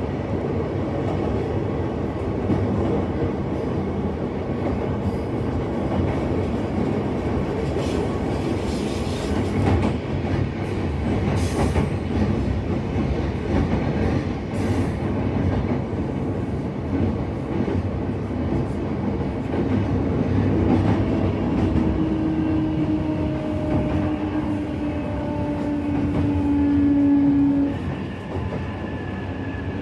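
Yamanote Line commuter train running, heard from inside the passenger car: a steady rumble of wheels on the rails. About twenty seconds in, a steady tone comes in, falls slightly and stops near the end.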